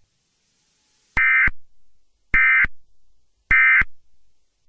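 Emergency Alert System end-of-message data tones: three short, identical bursts of rapid digital warbling about a second apart, each trailing a faint echo. They signal the close of the alert message.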